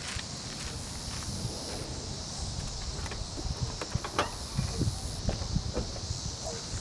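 Open-field ambience under a storm: a steady high insect hiss, wind rumbling on the microphone, and scattered faint clicks, with a few short chirps near the end.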